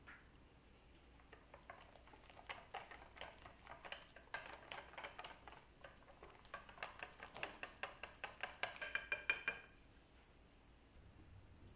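Whisk beating against a stainless steel bowl, mixing cream into melted chocolate for ganache: rhythmic clicking that grows quicker and louder, up to about four strokes a second, with the bowl ringing faintly, then stopping near the end.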